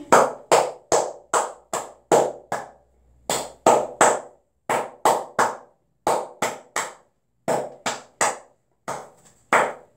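A child clapping her hands in rhythm: a steady run of about seven claps, then several groups of three with short pauses between them.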